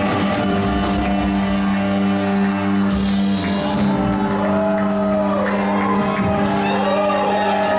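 Live band's guitars and drums holding a closing chord that rings on steadily, with the crowd whooping and shouting over it in the second half.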